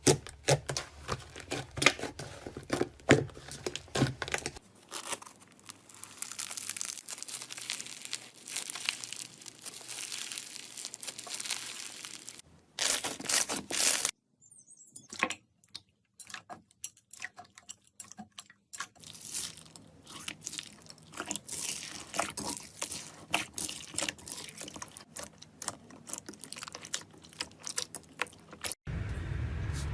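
Slime being squished, pressed and stretched by hand, giving dense crackling, popping and crinkling clicks. The sound changes from one short clip to the next every few seconds, with a brief near-silent gap about halfway.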